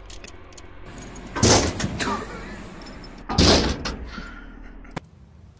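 Two loud bangs about two seconds apart, each lasting about half a second, then a single sharp click near the end.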